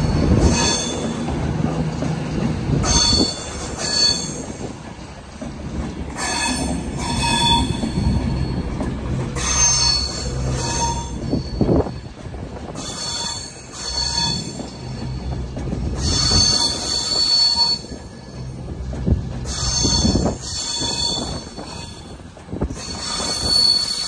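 Train wheels squealing on the rails in repeated high-pitched bursts, each a few tones at once, coming and going every second or two over the low rumble of the moving train.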